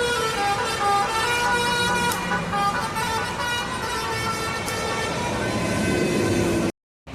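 Tourist bus's basuri (telolet) multi-tone horn playing a tune in stepped notes over engine and road noise. It cuts off abruptly near the end.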